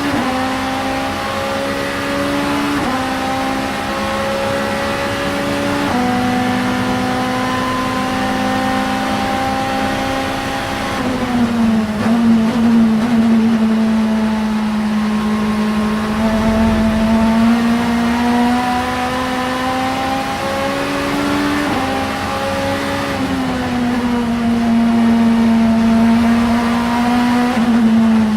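The 888 Vauxhall Vectra Supertouring car's 2-litre four-cylinder racing engine running hard at high, near-constant revs. The note dips briefly about three, six, eleven and twenty-three seconds in and climbs slowly in between.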